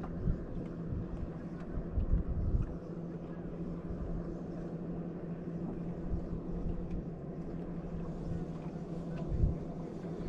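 Steady low hum of a boat's electric trolling motor, with water and wind noise and a few short low thumps.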